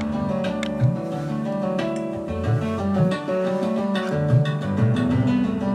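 Music playing back from a metal-position cassette on a Technics RS-5 stereo cassette deck, with plucked notes over held tones.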